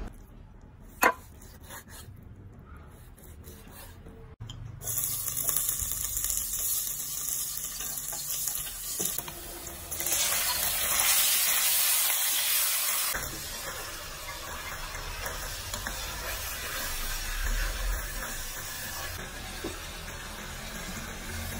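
A knife cutting meat on a wooden board, with one sharp knock about a second in. About five seconds in, pork starts sizzling as it fries in a metal pot. The sizzle grows louder about ten seconds in as a bowlful is scraped into the pot with chopsticks, then goes on steadily.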